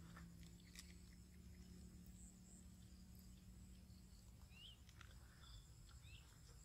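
Near silence: faint outdoor background with a steady high insect hum, a few faint ticks, and two short faint chirps a little past halfway.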